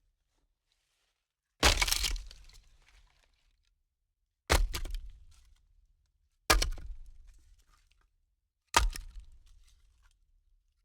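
Four sharp cracks about two seconds apart, each trailing off in a second of scattered crackling, like something hard breaking or splitting.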